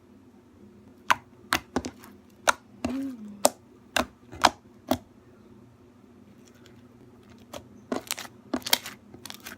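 Slime being mixed by hand: a series of sharp clicks and taps, about nine over four seconds, then a pause and another quick cluster near the end.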